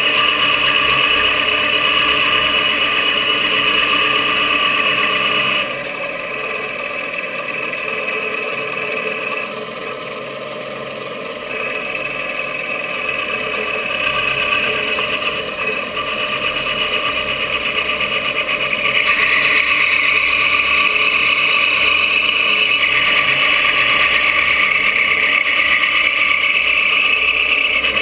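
Milling machine running an end mill through a polymer 80% AR-15 lower, cutting out the trigger pocket: a steady spindle whine with cutting noise. It drops quieter around six seconds in and picks up again, then grows louder with a stronger high whine from about nineteen seconds in as the cut takes more load.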